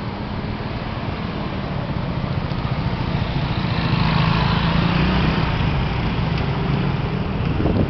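A motor vehicle's engine running, growing louder to a peak about halfway through and then easing off, over a steady rush of traffic and wind noise. A short low thump comes at the very end.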